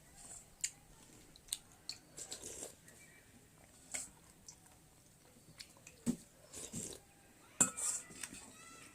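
Eating sounds: chewing, with irregular clicks and taps of cutlery against a dish.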